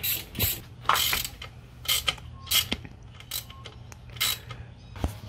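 Ratchet wrench clicking in short bursts, about one every half second to a second, as it undoes the exhaust header nuts on a motorcycle engine.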